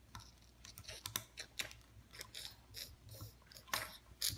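Small plastic Lego bricks clicking and scraping as they are handled and pressed onto a small model. It is a scatter of light clicks and crackles, with the clearest ones near the end.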